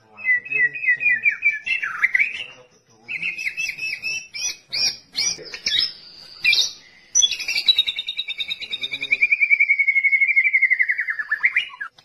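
White-rumped shama (murai batu) singing: quick phrases of clear repeated whistled notes, then a long fast trill of about four seconds that slowly falls in pitch.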